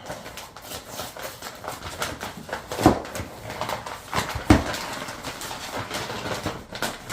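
Rustling and clattering as socket packaging and sockets are handled, with many small clicks and two louder knocks, about three and four and a half seconds in.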